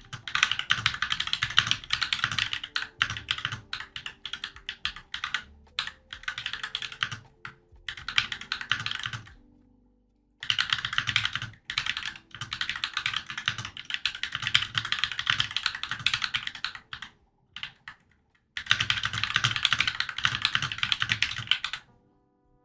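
Fast, continuous typing on a Glorious GMMK 96% mechanical keyboard during a typing speed test: dense runs of key clicks, broken by a short pause about ten seconds in and a sparser stretch of a few keystrokes near seventeen seconds.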